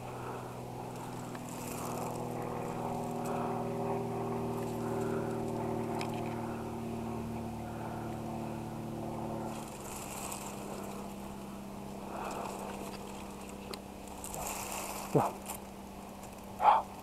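An engine drones steadily some way off, its tone changing and thinning about ten seconds in. Near the end come two short, sharp, loud sounds about a second and a half apart.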